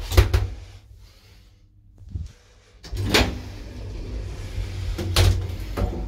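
Door and gate clunks of a 1960s Del Bo P.Stam traction elevator over a low mechanical rumble: a loud clunk right at the start, a small knock about two seconds in, then two more loud clunks about three and five seconds in.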